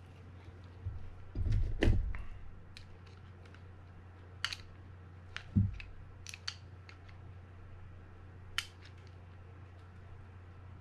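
Light clicks and ticks of small metal reel parts and a screwdriver being handled while a screw and nut are fitted back into a Daiwa Sealine 300H fishing reel, with a louder knock about two seconds in and another near the middle.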